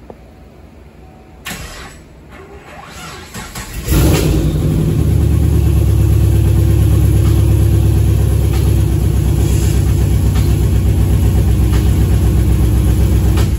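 2015 Camaro SS's 6.2 L LT1 V8 cranking and catching about four seconds in, then running steadily until it is shut off near the end. It runs with cylinder 1's injector unplugged and a pressure transducer in that spark plug hole, for an in-cylinder pressure waveform test on an engine with a misfire.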